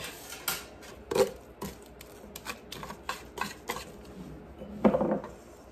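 Wooden spoon knocking and scraping against a stainless steel strainer as thawed blackberries are pressed through it to hold back the seeds: a run of irregular clicks and taps, with a louder knock near the end.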